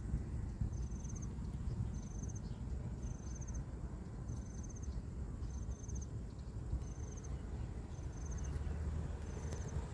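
An insect chirping: short, high-pitched, pulsed chirps, about one a second, over a low steady background noise.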